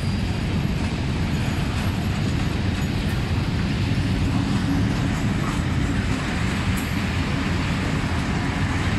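A freight train of covered hopper wagons rolling past: a steady rumble of steel wheels on the rails.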